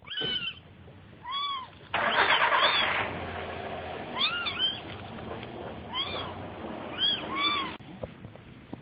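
Kitten mewing over and over: a string of short, high mews, each rising and falling in pitch. A burst of rustling noise comes about two seconds in.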